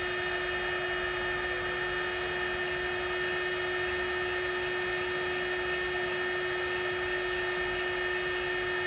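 Steady hum and whine of a switched-on shockwave therapy machine idling, with two constant tones. Faint high pips about twice a second through the middle come from the touchscreen's energy button being pressed repeatedly.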